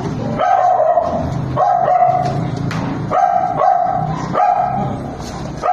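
Newborn Belgian Malinois puppies crying as they are handled: a string of about seven short, high cries, one every half second to a second.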